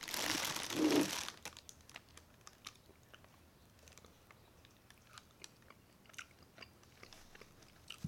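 Close-up crunching and chewing of crispy fried pork skin (chicharrones). A loud, dense crackle fills about the first second, then many short, crisp crunches follow as it is chewed.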